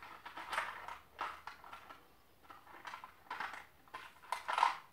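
Small plastic container being handled and rummaged, giving a string of irregular clicks and rattles of small hard parts, the loudest just before the end.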